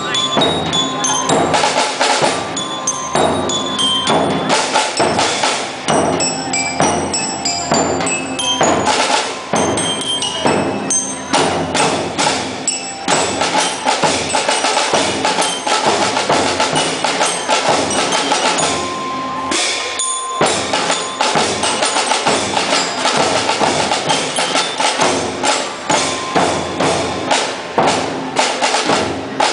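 Marching band playing: a dense drum cadence with a high melody on mallet bells, with a short break about twenty seconds in.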